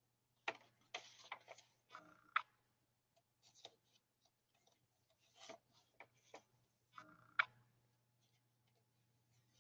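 Faint rustles and sharp taps of paper pages being turned in a handmade hardback journal, coming in a few clusters with the sharpest clicks about half a second in, near two and a half seconds and about seven and a half seconds in, over a faint low hum.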